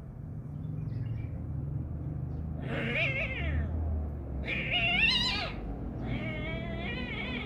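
A kitten yowling three times in long, wavering calls while squaring off against another cat, with a low rumble underneath.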